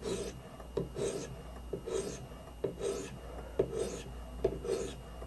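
A sharpening stone on the rod of a guided knife-sharpening system scraping along a CPR steel blade's convex edge in short strokes, about one a second, each starting with a light click. It is deburring: light passes at a slightly raised angle of about 24.2° to take off the burr.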